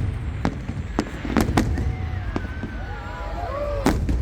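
Aerial fireworks going off: about six sharp bangs in four seconds, the loudest near the end, over a steady low rumble.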